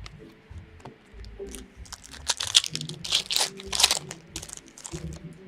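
Upper Deck hockey card pack wrapper being torn open and crinkled by hand, a cluster of crackly tearing and crumpling sounds strongest in the middle.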